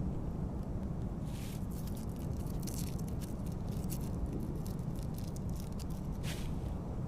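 Outdoor field recording from a remote wildlife camera: a steady low rumble, like wind on the microphone, with a few brief scratchy rustles, as of something moving through dry ground litter.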